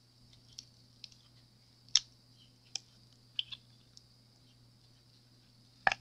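A silicone mold is flexed and peeled off a cured epoxy resin tray, giving scattered soft clicks and taps. Two louder knocks come about two seconds in and near the end, as the tray comes free, over a faint steady hum.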